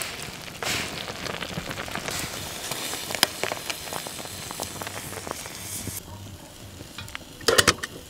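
A pot of food sizzling on a small wood-burning camp stove, with the wood fire crackling underneath. The hiss drops away about six seconds in, leaving scattered crackles and a few louder clicks near the end.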